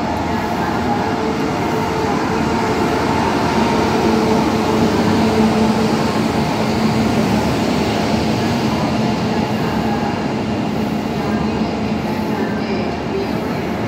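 Rajgir Humsafar Express passenger train pulling into the station: a steady rumble of the coaches rolling along the track, with a faint steady hum under it.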